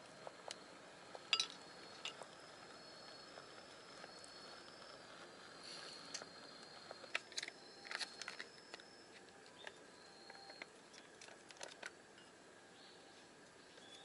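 Faint scattered clicks and crinkles of hands at work: a boiled egg being peeled, then a foil retort curry pouch being handled and torn open, with the sharpest click about a second in and a cluster of crackles around the middle. A thin high tone sounds on and off behind them.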